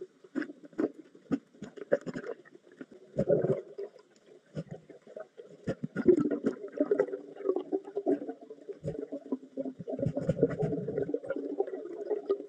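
Muffled underwater sound picked up by a submerged camera: scattered sharp clicks and knocks over a low, rumbling, bubbly murmur that grows louder about halfway through and again near the end.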